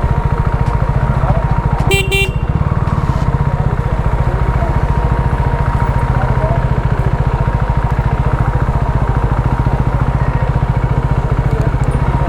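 KTM RC 390's single-cylinder engine running steadily under way. A vehicle horn sounds briefly about two seconds in.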